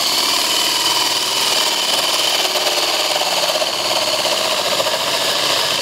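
Cordless drill driving a hole saw, cutting steadily through the PVC cap of a snap-on tee and down into the pipe beneath: a loud, steady whine of the motor and the saw teeth grinding through plastic.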